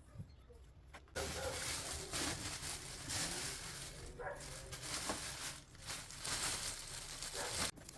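Water running and splashing steadily, starting abruptly about a second in and cutting off near the end.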